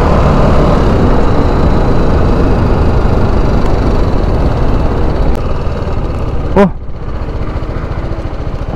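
Motorcycle engine running steadily. A short pitched sound about two-thirds of the way through, after which the overall noise drops somewhat quieter.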